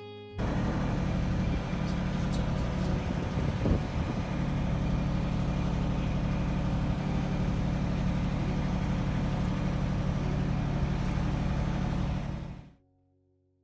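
An engine running steadily at a constant speed, with a brief knock a little under four seconds in. It stops abruptly near the end.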